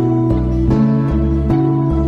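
Instrumental background music: plucked notes at an even pace over held bass notes.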